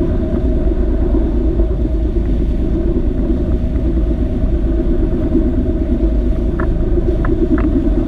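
Tour boat under way with a steady low rumble from its engine and the moving water.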